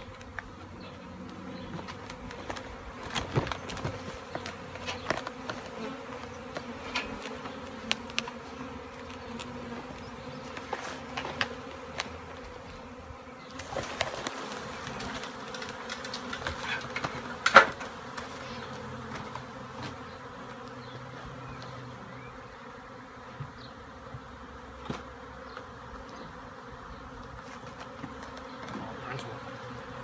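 A swarm of honeybees in flight, humming in a steady drone all around. Scattered sharp clicks and knocks sound over the hum, the loudest a little past halfway through.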